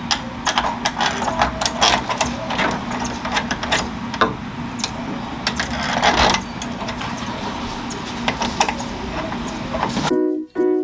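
Screws being driven into a smart deadbolt lock's inside unit: a run of irregular clicks and rattles over a steady hum. Plucked-string music starts just before the end.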